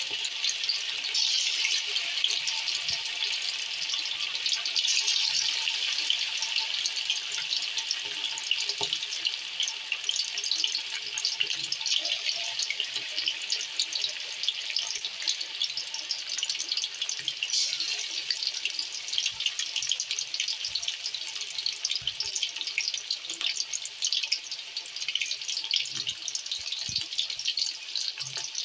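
Chicken pieces deep-frying in hot oil: a steady, dense sizzle of fine crackles.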